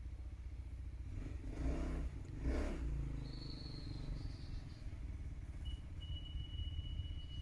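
UTV engine running at low speed, a steady low rumble that swells louder a couple of times in the first three seconds.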